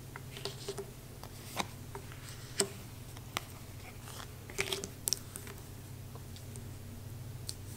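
Tarot cards being flipped and laid down on a tabletop: a string of irregular light clicks and slaps of card stock. A steady low hum runs beneath.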